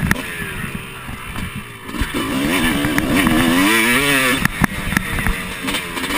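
Dirt bike engine being ridden hard: its pitch sags off throttle for about two seconds, then climbs and falls again and again as the throttle is worked, with a few sharp knocks.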